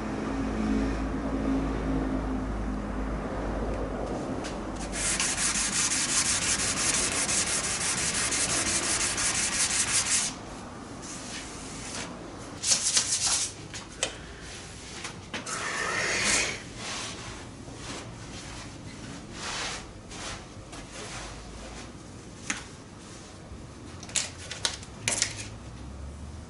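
Hand sanding of primer surfacer on a car body panel, sandpaper scraping back and forth. A run of fast, even strokes from about five to ten seconds in, then scattered single strokes and short passes.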